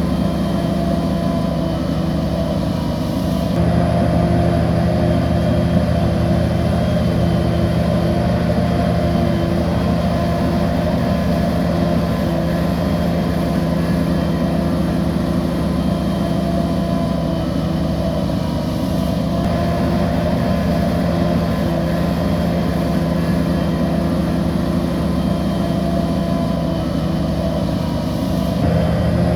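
Crawler bulldozer's diesel engine running steadily at working revs, with a deep, even drone. The engine note shifts about three and a half seconds in and again shortly before the end.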